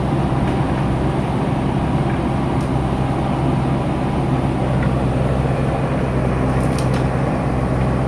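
JCB backhoe loader's diesel engine running steadily at an even, unchanging pitch.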